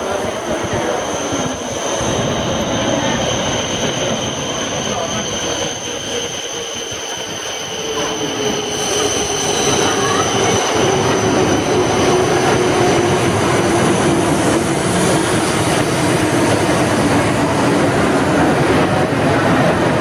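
E7 series Shinkansen train pulling into the station platform and slowing, a loud rushing run with a steady high whine and a lower tone that falls slowly as it decelerates; it grows louder about eight seconds in.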